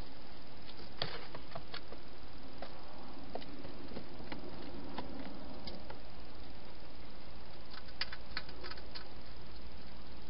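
Wild hedgehog eating at a bowl in a plastic feeding box: scattered small clicks and crunches, thickest about eight to nine seconds in, over a steady hiss.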